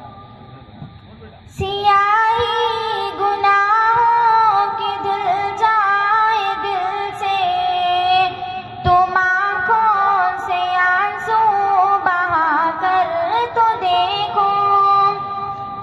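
A young girl singing an Urdu hamd (devotional praise of God) solo into a microphone, in long, ornamented held notes. She comes in about a second and a half in, after a short pause.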